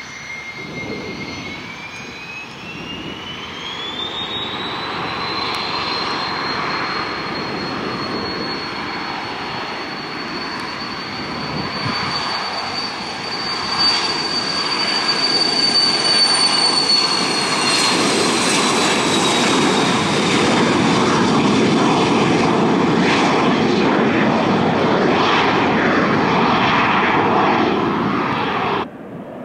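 Small twin-engine business jet taking off. Its turbofan whine climbs in pitch over the first few seconds as the engines spool up to takeoff power, then holds steady. The engine noise grows louder through the takeoff roll and climb-out, then cuts off abruptly just before the end.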